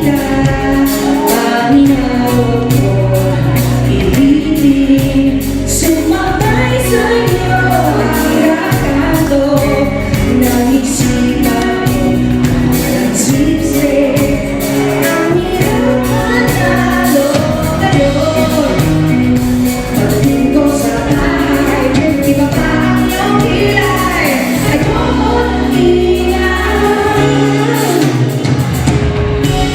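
Live pop music: a woman singing over a band, with backing vocals, in a steady rhythm.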